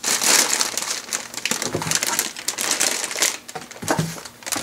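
Plastic bags full of LEGO pieces crinkling and crackling as they are pressed down and shuffled by hand. Dense crinkling starts suddenly and runs for about three and a half seconds, then thins to a few lighter rustles.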